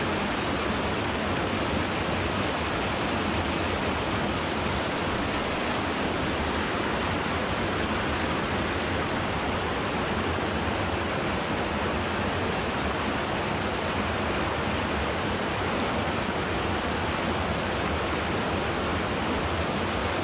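Steady rush of a small mountain stream's flowing water.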